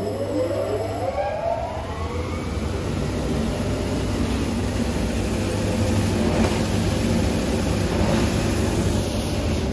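Automatic corrugated-box folder gluer starting up: a rising whine over the first couple of seconds as its drives spin up, then a steady running noise with a low hum.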